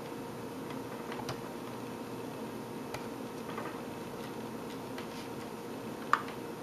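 Scattered small clicks and ticks as component leads and wires are worked loose on a tube chassis during desoldering, with one sharper click about six seconds in, over a steady faint hum.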